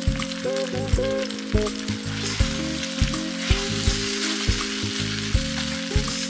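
Basil-pesto cream sauce sizzling and bubbling in a frying pan as it is stirred with chopsticks. Background music with a steady beat of low thumps about twice a second plays over it.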